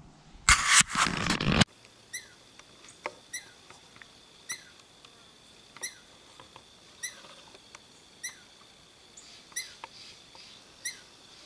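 A brief loud rustle near the start, then a tree squirrel calling: short, sharp downward chirps repeated about once every second and a bit, a scolding call. A faint steady high whine runs underneath.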